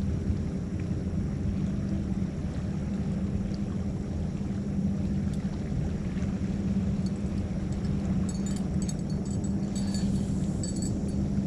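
A steady low mechanical hum with a constant pitch, like a motor running. Faint high metallic clinks come in over it from about seven seconds in.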